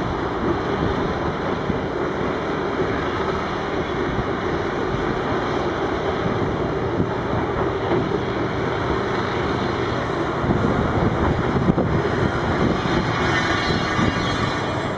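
Heavy diesel dump trucks and wheel loaders running and manoeuvring together, a steady mechanical din that grows rougher and a little louder about ten seconds in.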